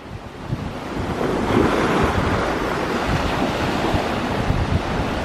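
Wind buffeting the microphone: a steady rushing noise with uneven low thumps, growing louder over the first second or so.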